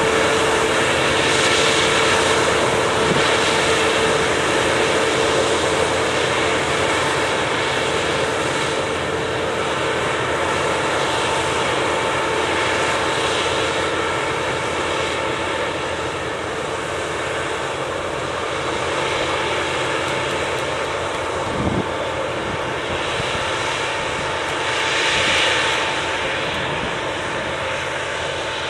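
Claas combine harvester running steadily as it harvests grain: a continuous engine-and-machinery drone with a steady whine. Near the end it swells as a grain trailer passes close.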